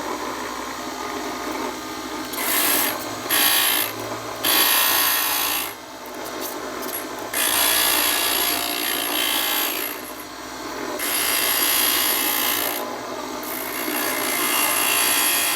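Pieces of stained glass being ground against the wet grinding wheel of a homemade electric glass grinder. A steady motor-and-wheel hiss runs throughout, and the grinding noise swells in spells of one to three seconds each time a piece is pressed to the wheel, about six times.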